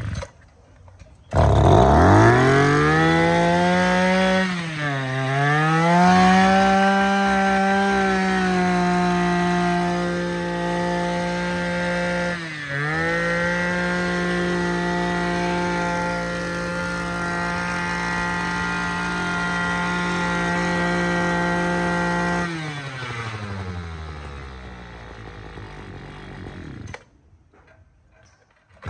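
Small Echo 35cc two-stroke engine on a rice-field trenching machine, pull-started. It catches about a second in and revs up to a steady high speed, dipping briefly twice. Near the end it drops back to idle and is shut off.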